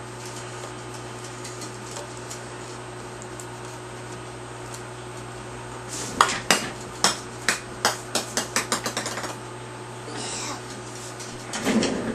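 A small hard object dropped onto a hard surface, bouncing about a dozen times with the bounces coming quicker and fainter until it settles, over a steady low hum.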